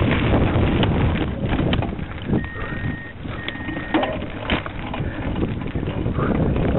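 Cyclocross bikes riding over rough gravel and grass: tyres crunching, the bike and camera rattling and jolting over the bumps, with wind buffeting the microphone. Two short, steady high beeps sound in the middle.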